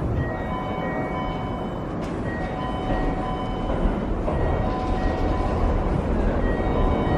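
Keikyu limited express train approaching through the station at speed, its rumble growing steadily louder. Steady electronic tones come and go over it, repeating on and off.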